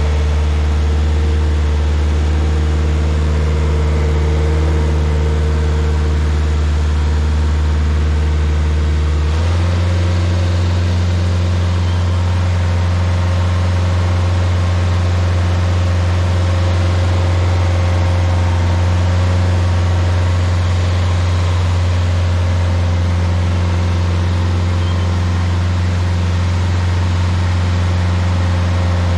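Stump grinder engine running steadily at high speed, its pitch stepping up slightly about nine seconds in.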